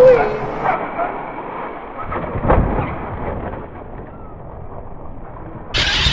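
Traxxas E-Maxx RC monster truck with a VXL brushless motor on 4S landing from a jump and driving off, with a knock under a second in and a stronger one about two and a half seconds in. Near the end the noise suddenly gets much louder as the truck runs close by.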